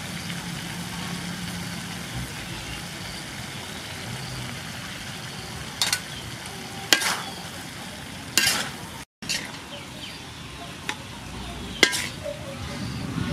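Lotus root, shrimp and minced pork sizzling steadily in a hot wok. In the second half a metal spatula scrapes and knocks against the wok about four times.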